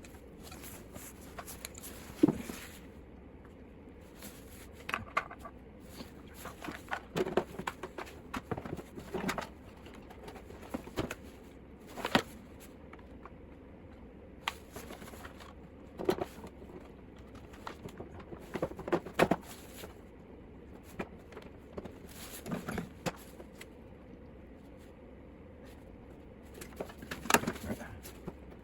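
Irregular clicks, clanks and knocks of hand tools and metal parts being handled while a lawn mower is being reassembled, over a steady low hum.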